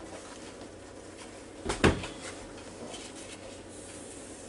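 A short, sharp double knock a little under two seconds in, against faint room tone.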